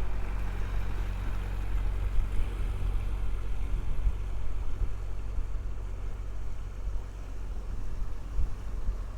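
Wind buffeting the microphone in an uneven low rumble, with a faint steady engine hum underneath.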